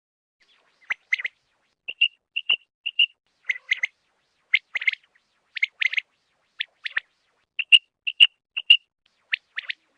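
Quail calling: short, high, clipped notes in quick pairs and triplets, repeated about once a second after a second of silence, with no background noise at all.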